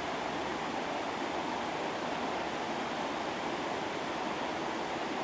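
Steady, even rushing noise with no rhythm or breaks, like a continuous flow of water or air.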